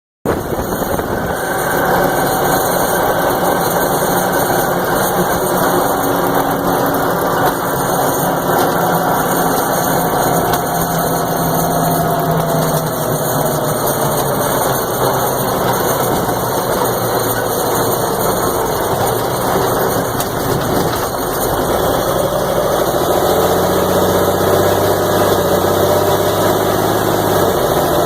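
M925 military 5-ton truck's diesel engine running, carrying an unusual noise that the owner cannot identify. A tone slides slowly down in pitch through the middle, and from about 23 seconds in the sound grows a little deeper and louder.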